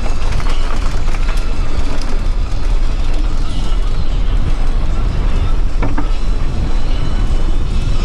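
Mountain bike rattling and rumbling over a rough, rocky trail, with wind on the microphone; a dense, loud noise with a heavy low rumble and a few faint clicks.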